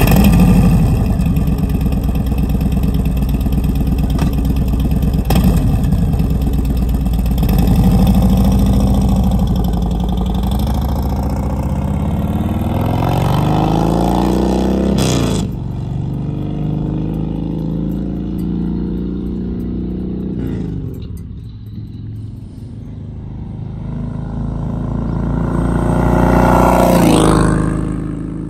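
Harley-Davidson Sport Glide's Milwaukee-Eight 107 V-twin, breathing through a Tab Performance 4-inch slip-on muffler with the zombie baffle, running loud after start-up. It then pulls away, the pitch rising in repeated climbs that drop back at each gear change, and fades with distance. It grows louder again near the end.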